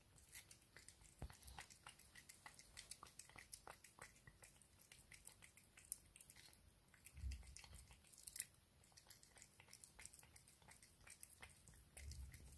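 Sphynx cat licking and chewing wet food from a plastic spoon: faint, quick wet smacking and clicking of the tongue and mouth. Two soft low thumps come about halfway through and near the end.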